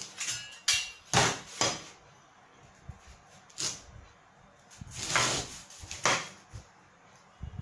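Rulers and a carpenter's square being handled on a sheet of cardboard: a series of separate clacks and knocks as they are picked up, set down and shifted into place, a few of them drawn out into short scrapes.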